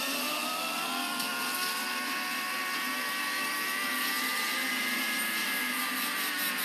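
Anime energy-blast sound effect: a sustained rushing hiss with a whine that rises in pitch in the first second, then holds.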